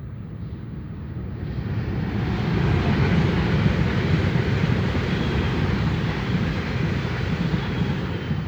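Nordwestbahn class VT 648 (Alstom Coradia LINT 41) diesel multiple unit passing: engine rumble and wheels on rails build up, are loudest about three to five seconds in, then ease off.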